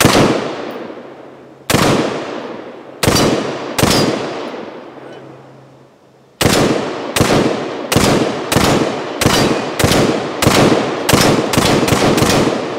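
Semi-automatic AR-15 rifle with a 14.7-inch barrel firing about fifteen shots, each followed by a long echo: four spaced shots, a pause of about two seconds, then a steady string of quicker shots that speeds up near the end.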